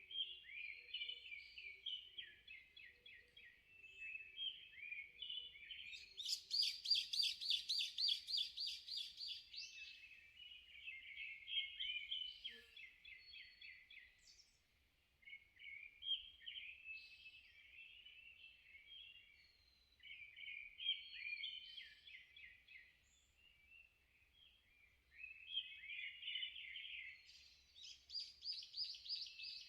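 Wild songbirds singing in a forest: near-continuous chattering, warbling phrases, broken about six seconds in by a loud, rapid run of repeated notes lasting a few seconds. A similar run comes back near the end.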